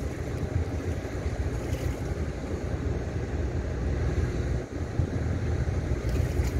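Wind buffeting the microphone, a steady rumbling noise, over choppy harbour water lapping against the quay.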